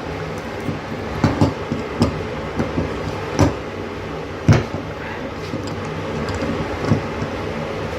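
Metal drain puller knocking and clanking irregularly in a bathtub drain as it is worked counterclockwise to break the drain loose, over a steady low hum.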